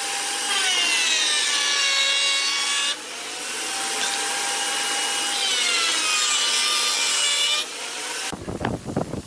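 Table-mounted electric router whining as wooden strips are fed past the bit, with two heavier cutting passes in which the motor's pitch sags under load and then recovers. Near the end the sound cuts abruptly to a rough scratchy noise.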